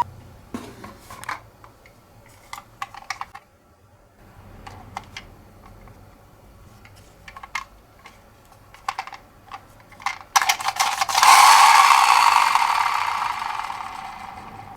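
Scattered clicks and taps of a toy ambulance minicar being handled. About ten seconds in, the minicar's wheels roll down a slope with a loud rushing rattle that sets in suddenly and fades away over a few seconds.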